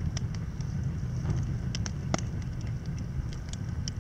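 Wood campfire crackling, with scattered sharp pops at irregular intervals over a steady low rumble.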